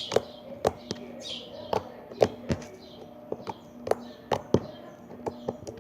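Slime being squeezed and pressed in a click test, making sharp irregular clicks and wet pops, two or three a second.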